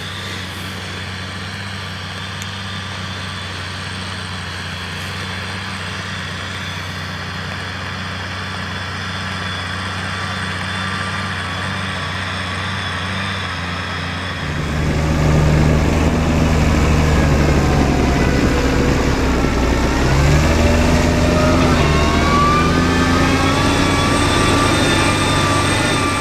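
New Holland T6.175 tractor's diesel engine running steadily, growing louder about halfway through, with its pitch wavering up and down as engine speed changes.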